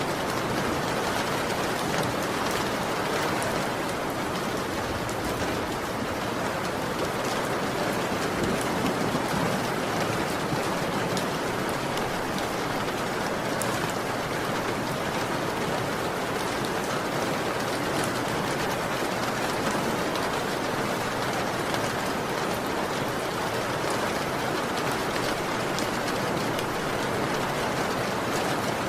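Heavy rain falling steadily, a dense even hiss with many small drop ticks, as on a tiled roof.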